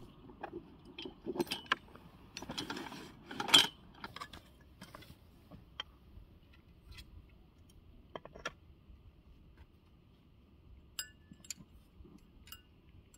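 Metal antenna mast parts being handled and unpacked from a canvas bag: rustling and small knocks during the first four seconds or so, then scattered light metallic clinks with a brief ring, most clearly near the end.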